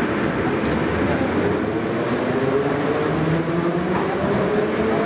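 Interior of an 81-717/714.5 'Nomernoy' metro car running through the tunnel: a steady, loud rumble of the moving train. From about two seconds in, whining tones join it, stepping between different pitches.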